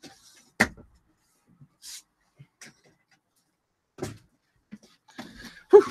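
Scattered knocks and clicks of someone moving about and handling things in a small room: a sharp click about half a second in, a thump about four seconds in, and denser rustling and knocking near the end.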